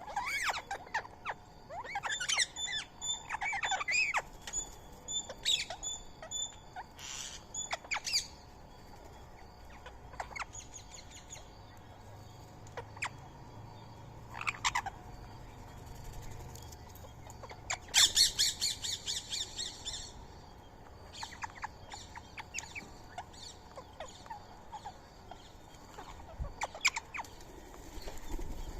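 Birds calling: short chirps and squawks scattered throughout, busiest in the first several seconds, with a fast rattling trill about eighteen seconds in.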